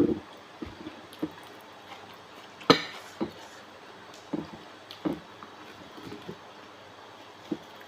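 Close-up wet chewing and lip-smacking sounds of a person eating raw seafood: scattered short squishy smacks, the sharpest about three seconds in.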